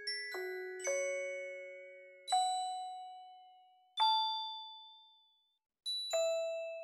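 Slow, sparse score music of single bell-like struck notes, each ringing out and fading away. There are about six notes, with a moment of silence shortly before the last.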